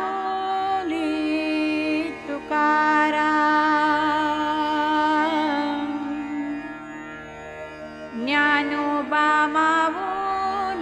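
A woman singing a Marathi devotional abhang in Indian classical style, drawing out long ornamented notes over a steady drone and accompaniment; the music softens briefly about two-thirds of the way through.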